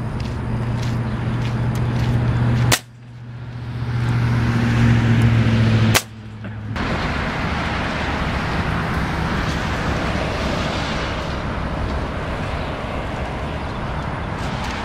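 An engine running steadily with a low hum, with several sharp clicks in the first seconds; the sound cuts out suddenly twice, and from about seven seconds in a steady rushing noise takes over.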